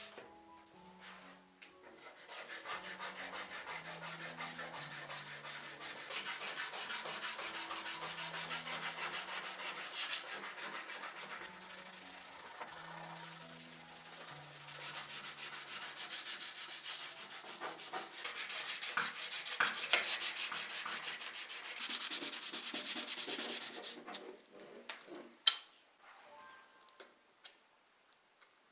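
Rapid back-and-forth sanding of a small model car's body, a dense scratchy rubbing that starts about two seconds in and stops near the end. A few sharp clicks or taps follow it.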